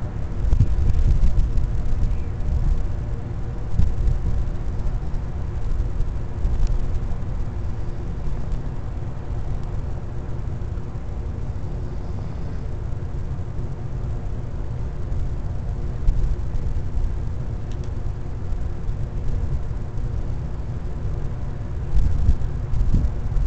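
Steady low rumble with a constant machinery hum running through it, broken by a few brief bumps.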